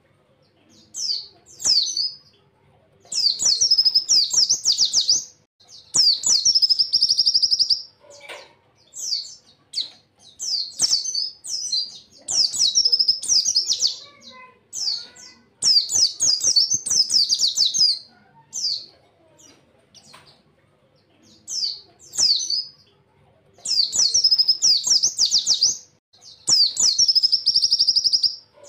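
White-eye (pleci) singing: repeated high, fast phrases of chirps and trills, each a second or two long with short pauses between. Several phrases end in a rapid buzzy trill.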